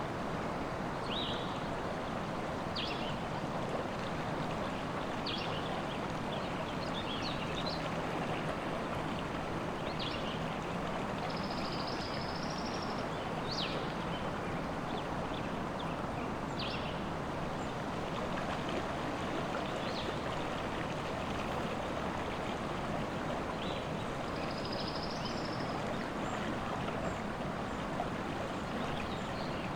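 River water running steadily, with forest birds calling above it in short scattered chirps and a few brief held high notes.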